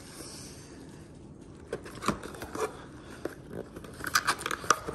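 Cardboard trading-card hobby box being handled and its top flap opened: scattered light clicks and scrapes, with a short crackly rustle of card stock near the end.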